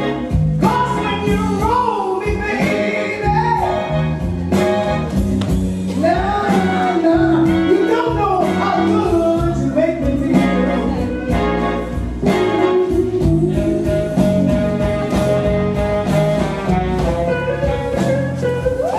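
A blues song playing for the dancers: a singer's voice, bending between notes and holding some long notes in the second half, over a steady bass line.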